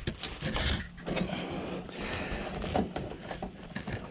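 Hands working at the cab roof: irregular rubbing and scraping with many small clicks and knocks as the nuts are started onto the new clearance light housing's mounting bolts.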